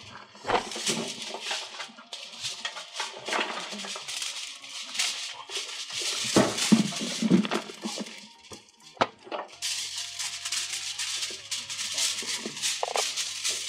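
Aluminium foil crinkling and rustling as it is handled, a dense crackle throughout. Background music with low held notes comes in about two-thirds of the way through.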